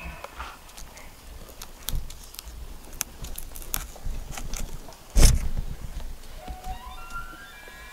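Footsteps crunching through dry twigs and downed branches with scattered snaps, and a heavy thump about five seconds in. Near the end a bull elk begins to bugle, a rising whistle.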